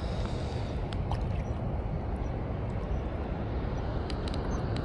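Steady rushing of shallow creek water around a wading angler, with low wind rumble on the microphone and a few faint clicks.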